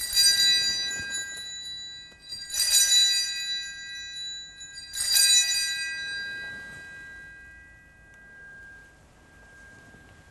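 Altar bells rung three times, about two and a half seconds apart, each ring a cluster of high bright tones that fades slowly, the last one dying away over several seconds. They mark the elevation of the consecrated host at Mass.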